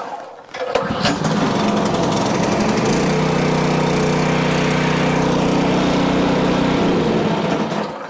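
Predator 212 single-cylinder gas engine on a pressure washer catching on a recoil pull about a second in, running steadily with its pump turning dry and no water connected, then shut off near the end. It now starts and runs, so the no-start has been cured by cleaning the carburetor bowl.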